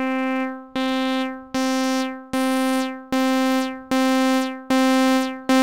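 ES1 software synthesizer playing the same note C eight times, about 0.8 s apart, each note held and then fading. Each note is brighter than the last because rising note velocity opens the filter cutoff through ADSR via velocity.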